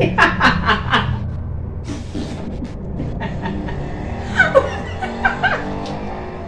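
A woman laughing in a quick run of "ha-ha" bursts at the start, and again about four seconds in.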